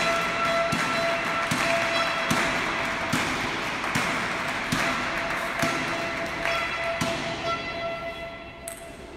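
Table tennis ball clicks and bounces, about one every half second to a second, gradually fading.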